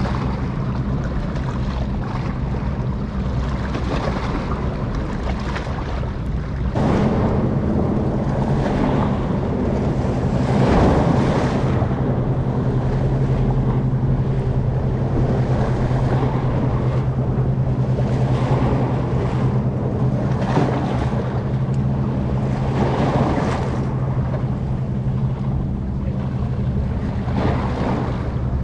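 A vessel's diesel engine hums steadily and low, mixed with rushing water and wind buffeting the microphone in gusts. The sound steps up slightly about seven seconds in.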